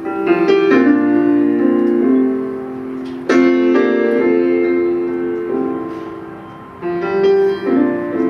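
Slow piano music: chords struck and left to ring and fade, with a fresh chord about every three to four seconds.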